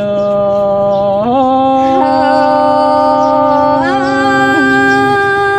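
Thái folk love-song singing: a voice holds a long drawn-out note, sliding up to a higher pitch about a second in. Further held notes come in above it about two and four seconds in.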